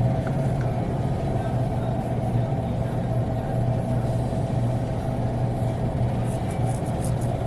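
Steady low hum of a vehicle running, with even road-like noise and a faint constant tone above it.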